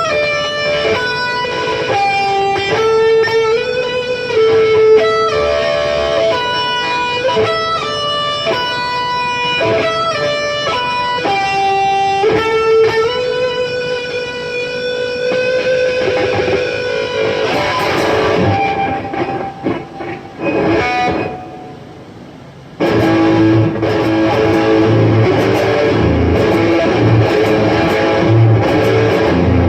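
Electric guitar music: a picked single-note melody line. About two-thirds through it drops away, then a louder, fuller section with heavy low end cuts in suddenly.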